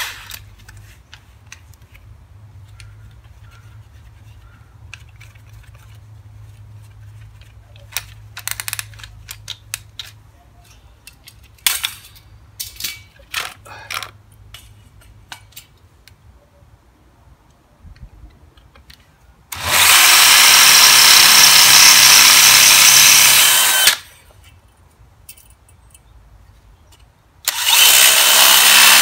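Power drill boring into the greenhouse vent's metal frame: one steady run of about four seconds, then a second run starting near the end. Light handling clicks and taps come before the first run.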